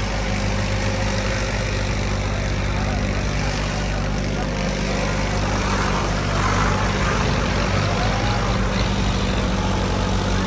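Diesel tractor engine running steadily under load as it pulls an 18-plate disc harrow through the soil.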